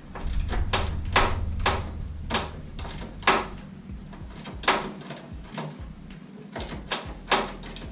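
Irregular sharp clicks and knocks, about a dozen, from hands and tools working on truck parts during a teardown, over a low rumble.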